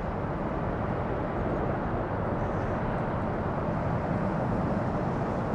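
Jet airliner engines: a steady rumble with no distinct whine, swelling slightly in the middle.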